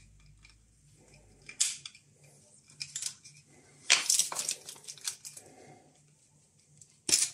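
Hands loosening the clamping bolts on a dosimeter's extension boom and handling its detector block: scattered small clicks and knocks, loudest in a quick cluster about four seconds in, with a sharp click near the end.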